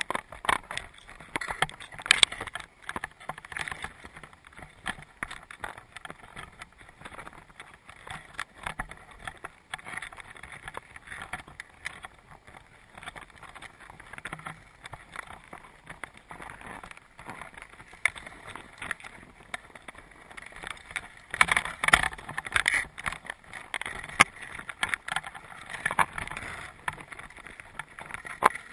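Heard underwater: crabs' shells and legs clicking and scraping on a crab trap's mesh, a dense crackle of small knocks over a low hiss, with a louder cluster of scraping about three-quarters of the way through.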